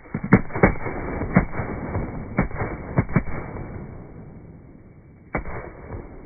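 A pack of thunder bomb firecrackers going off: a quick, irregular run of sharp bangs over the first three seconds, then one last lone bang near the end.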